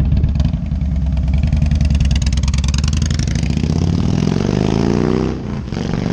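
Harley-Davidson Road King's Twin Cam 88 V-twin running loud and pulling, its pitch rising as it accelerates, with a brief dip about five and a half seconds in before it climbs again.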